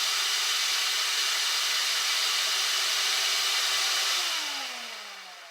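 Shop vac running with a steady loud rushing noise, then switched off about four seconds in: its motor whine falls in pitch and the noise fades as it spins down.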